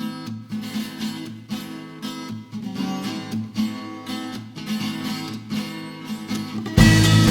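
Background music: rhythmic strummed acoustic guitar chords, turning suddenly louder with a heavy bass line coming in near the end.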